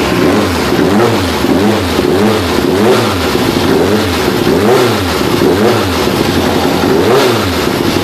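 Reynard Formula 3 car's Spiess-tuned four-cylinder racing engine being blipped over and over, about once a second, each rev rising and falling straight back.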